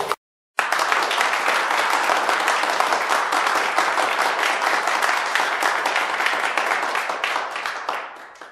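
Applause: many hands clapping together in a dense, steady patter, starting after a moment's silence and fading away near the end.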